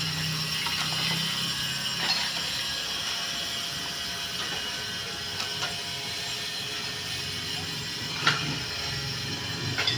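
Steady mechanical running noise with a low hum, broken by a few sharp clicks and knocks, the loudest about eight seconds in.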